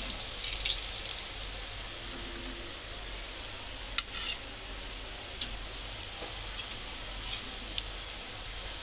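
Mutton keema cutlets deep-frying in hot oil in a small kadhai: a steady sizzle with crackling. There is a sharp click of a utensil about four seconds in, and a few lighter ticks after it.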